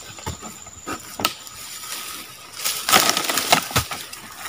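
Dry oil palm fronds and fibres rustling and snapping as a fruit bunch is tugged at by hand. A few sharp cracks are scattered through, with a louder burst of rustling about three seconds in.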